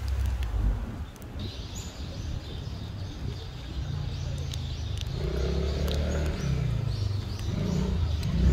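Outdoor ambience: faint bird chirps over a low, steady rumble of distant traffic.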